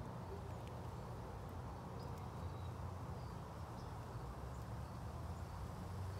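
Faint outdoor ambience: a steady low rumble with a few faint, short, high chirps about two seconds in.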